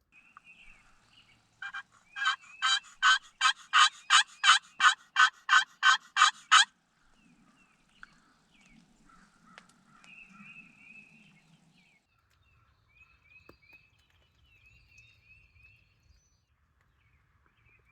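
A loud series of about fourteen evenly spaced, rasping turkey yelps, about three a second, that stops after about five seconds. Faint, thin bird chirps follow.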